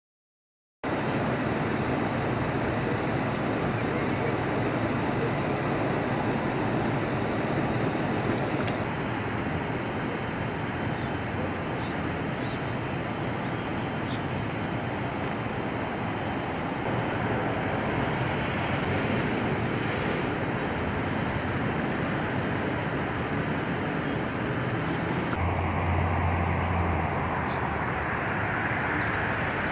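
Steady outdoor road traffic noise, an even wash of passing cars, with a few short high chirps in the first several seconds. The background shifts abruptly twice as the ambience changes between shots.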